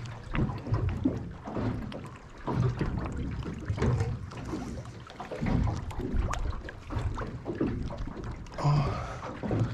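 Wind buffeting the microphone in irregular gusts, with water lapping against the side of a small boat that is stopped.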